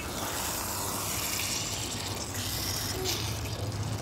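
Plums and tamarind frying in hot mustard oil in a pan, sizzling with a steady hiss as they are stirred with a spoon.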